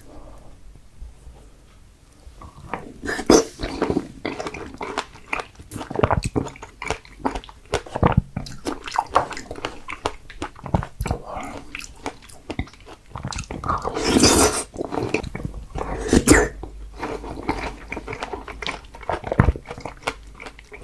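Close-miked wet chewing and biting of fresh strawberries: dense, irregular smacking clicks that start about two seconds in, with louder bites around two-thirds of the way through.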